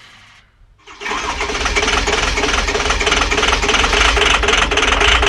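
Cold International diesel engine, hard to start in the cold, comes in loudly about a second in. It keeps up a steady, fast, even mechanical rhythm.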